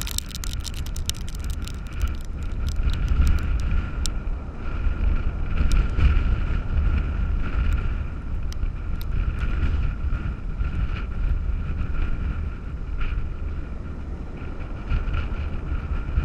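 Hurricane-driven wind buffeting the microphone in heavy, gusting rumbles over the rush of storm surf, with blown sand ticking sharply against the device, thickest in the first few seconds.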